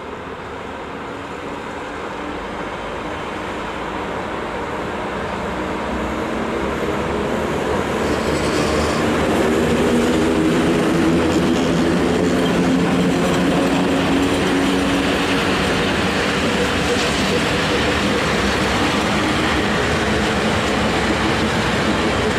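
A convoy of PKP Cargo electric locomotives, ET22 and twin-section ET41 units, approaches and passes close by on the track. The sound grows steadily louder over the first ten seconds, then stays loud as the locomotives go by. Through the middle there is a steady hum of several tones over the rumble of the wheels.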